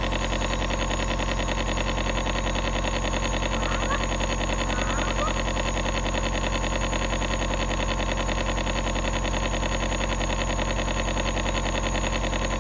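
Compressor nebulizer running with a very loud, steady mechanical buzz, switched on just as the sound begins.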